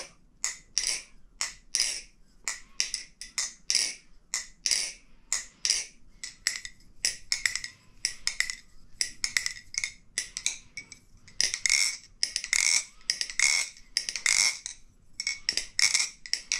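Bbbarfly Barracuda V2 balisong trainer being flipped: its handles clack against each other and the blade about twice a second, with louder, quicker runs of clacks after about ten seconds. The pivots are very tight, with no play or wiggle.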